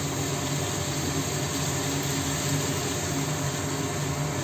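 Kitchen fan running with a steady whir and low hum.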